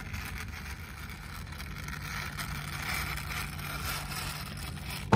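Plastic wheels of a toy car rolling over a terrazzo floor as it is pushed by hand, a steady rolling noise with a faint steady low hum underneath.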